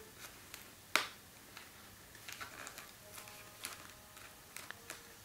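Light rustling and small clicks of rolled paper tubes and tape being handled, with one sharper click about a second in.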